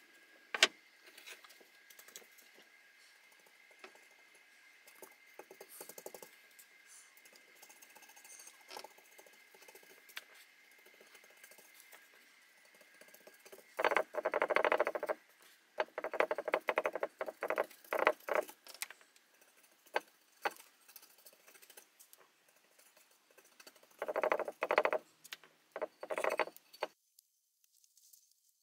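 Paintbrush loaded with paint stripper being dabbed and dragged over the painted metal base plate of a drill press, in bursts of scratchy brushing strokes about halfway through and again near the end. A sharp click comes about half a second in, with small knocks in between the brushing.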